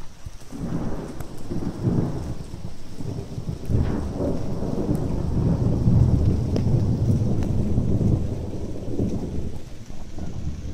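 Thunder rolling in a long low rumble, with sharper cracks about two and four seconds in. It is loudest about six seconds in and dies away near the end. Steady rain hisses underneath.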